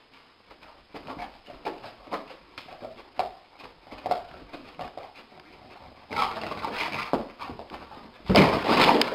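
Sleeping dog making a string of short muffled yips and paw scuffs as it runs in its sleep, then a loud scuffling burst near the end as it scrambles up and dashes off.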